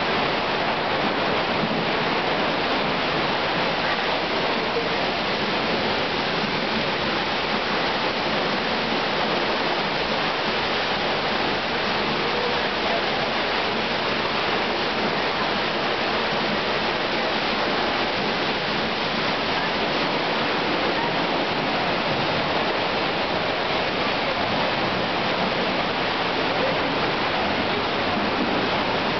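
North Falls, a tall single-drop waterfall, rushing steadily and unbroken, heard from the trail in the rock overhang behind the falls.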